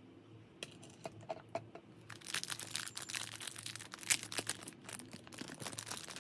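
Small clear plastic bag crinkling as fingers open it, after a few light clicks, with dense crinkling from about two seconds in.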